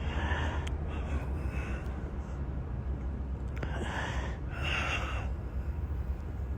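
A man who is ill breathing heavily and sighing, with several audible breaths spaced a second or more apart.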